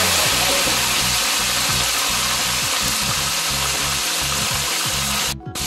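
Whole red snapper frying in a pan of hot oil, a steady sizzle that breaks off for a moment near the end.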